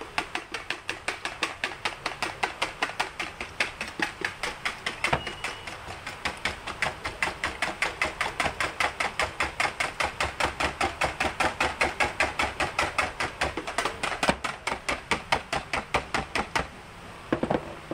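Wire balloon whisk beating eggs in a plastic tub, its wires clicking rapidly against the tub's sides at about four or five strokes a second, stopping shortly before the end.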